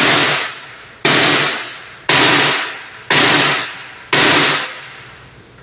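Sledgehammer striking a black plastic car panel lying on a steel table: five heavy blows about a second apart. Each blow lands with a sharp bang that rings off over about half a second.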